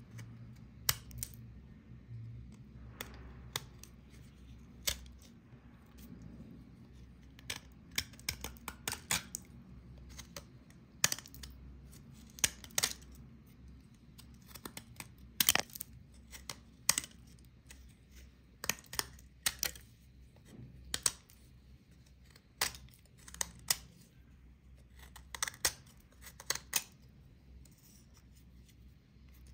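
Knife blade scraping and chipping dried clay layers off a clay block: irregular crisp cracks and snaps as flakes break away and drop.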